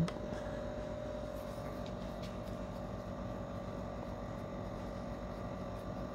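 A short knock at the start, then a steady mechanical hum with a few faint clicks.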